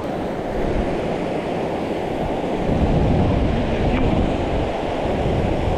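Mountain stream running steadily, with wind buffeting the microphone.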